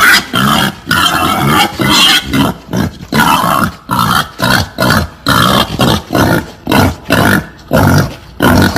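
Female wild boar calling in a long, even series of rough grunting calls, about two a second.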